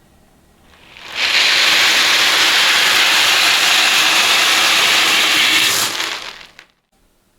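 A steady stream of small beads pouring out of a bottle, a dense rushing rattle that starts sharply about a second in, holds even for about five seconds, and tails off near the end.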